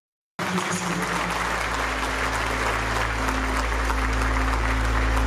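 Audience applauding, a dense, even clapping that starts about half a second in, with a low, steady music note swelling underneath.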